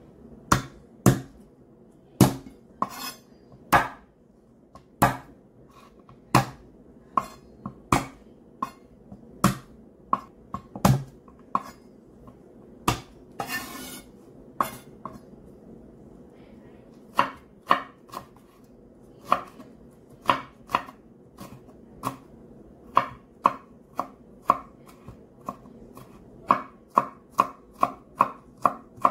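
Chef's knife chopping garlic cloves on a wooden cutting board: sharp knocks of the blade on the wood, about a second apart at first, quickening to rapid mincing strokes of about three a second near the end.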